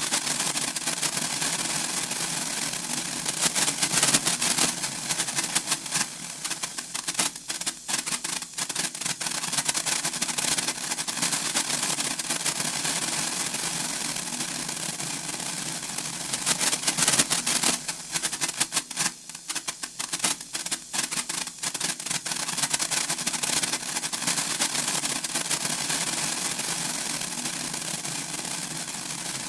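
Senko hanabi, a Japanese hand-held sparkler, crackling with a dense, fast patter of tiny spark pops. It swells to its thickest about 3–4 s in and again around 17 s, and thins to sparser pops around 8 s and 19–21 s.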